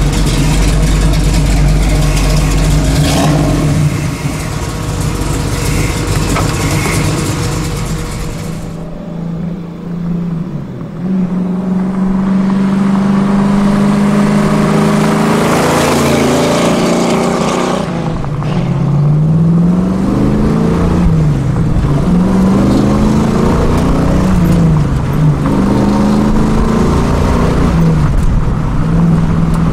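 The GM Performance Parts 502 cubic-inch big-block V8 of a 1967 Camaro RS/SS, first running at a steady idle, then under way, heard from inside the cabin. Its pitch climbs and drops several times as the car accelerates through the gears, settling into a steady note near the end.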